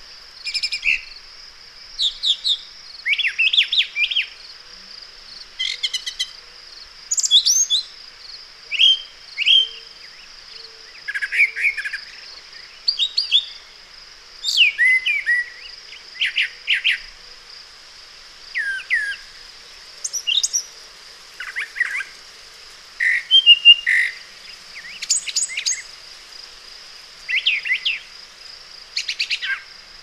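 Brown thrasher singing: a string of short, varied phrases, each about a second long with a pause between, every phrase different from the last and none repeated. A steady high hiss runs underneath.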